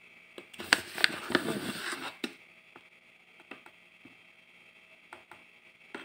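Ground coffee tipped from a scoop into a paper filter in a drip coffee maker's basket: about a second and a half of rustling and pouring with several sharp taps of the scoop, then a few faint ticks.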